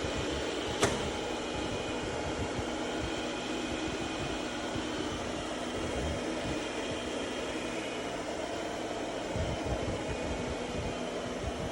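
Proscenic 850T robot vacuum running with a steady hum and hiss, with one sharp click about a second in.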